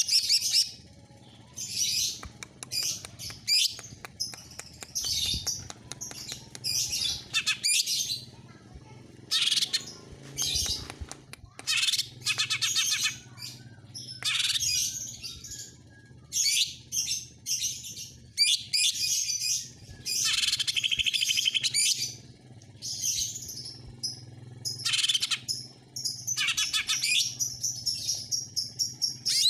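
Cucak ijo (green leafbird) singing in rapid bursts of varied, high-pitched chattering phrases, with short pauses between them. A faint steady low hum runs underneath.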